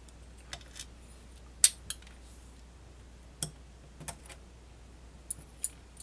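Light, irregular clicks and taps of small metal lock parts being handled and set down on a plastic pin tray, about nine in all, the sharpest about a second and a half in.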